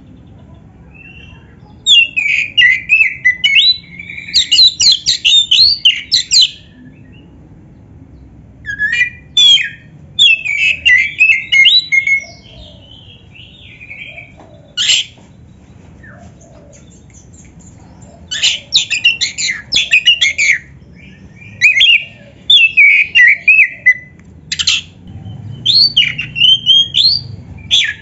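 Black-breasted Oriental magpie-robin (kacer) singing loudly in about half a dozen bursts of rapid, varied phrases, with pauses of one to three seconds between them.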